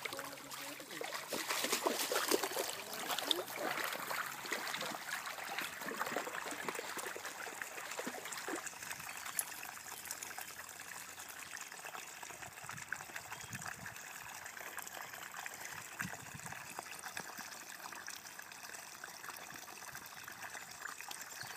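A shallow creek trickling and running over its bed, louder and more uneven for the first several seconds, then a steady trickle.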